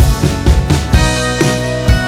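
Background music: an upbeat song with guitar over a steady drum beat of about two kicks a second.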